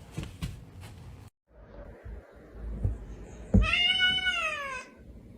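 A cat meowing once, one drawn-out meow lasting over a second that rises slightly and then falls in pitch, after a few soft knocks.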